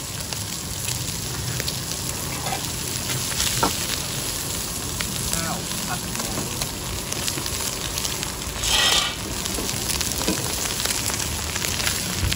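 Food sizzling in a hot wok as a metal spatula stirs and scrapes it, with short sharp clinks of the spatula on the wok. A louder burst of hissing lasts about half a second, a little after the middle.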